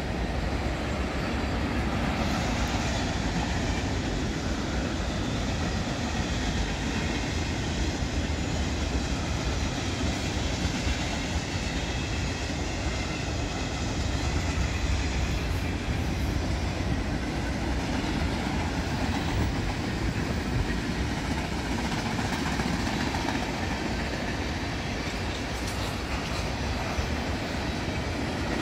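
Long mixed freight train of tank cars, boxcars and covered hoppers rolling past, its wheels running on the rails in a steady, even rumble.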